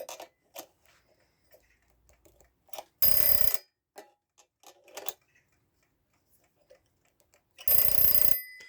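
Twin-bell mechanical alarm clock's alarm going off in two short bursts of fast hammer strikes, with light clicks of handling between them. The hammer is hitting only one of the two bells, a sign that it is still off-centre.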